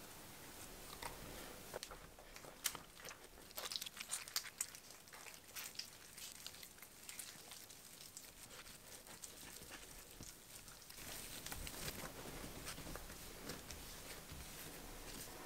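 Bread dough with oil just added being kneaded by hand on a countertop: faint, sticky, wet squelches and clicks as the oily dough is squeezed and torn, busiest a few seconds in and again near the end.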